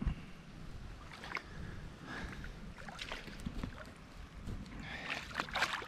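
Faint handling noise at the water's edge: scattered rustles and light knocks with water sloshing, over a low wind rumble on the microphone.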